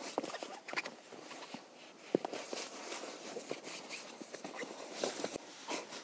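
Fabric rustling with scattered light clicks and taps as a small dog is held and shifted about on a tent floor, with one sharper click about two seconds in.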